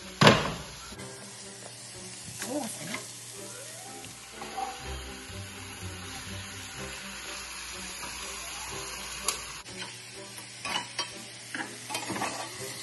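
Salmon and vegetables sizzling in a nonstick sauté pan as they are stirred and turned with a silicone spatula, with a steady frying hiss. A brief loud burst comes at the very start, and a few light spatula knocks against the pan come near the end.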